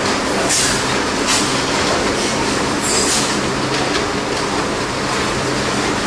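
Pen of weaned piglets: a few short, high squeals, about half a second, just over a second and three seconds in, over a steady machine hum and hiss in the piglet house.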